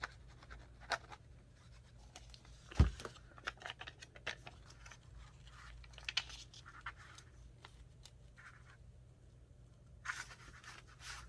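Paper and crafting materials being handled while glue is applied in a junk journal: light scratching and rustling with scattered small clicks, one sharp knock about three seconds in, and a louder rustle near the end.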